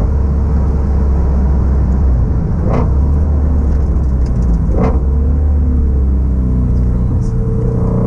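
Shelby Mustang GT350's 5.2-litre flat-plane-crank V8 running at a gentle cruise, heard from inside the cabin over a steady low road rumble; the engine note starts to climb near the end.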